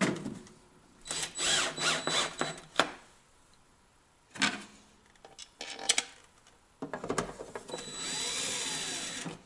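Power drill driving screws into a plastic electrical box in several bursts, with a longer steady run near the end.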